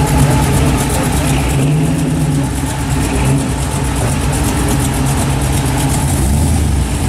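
Engine of a 1964 Chevrolet Impala hardtop running steadily at low revs as the car rolls slowly past.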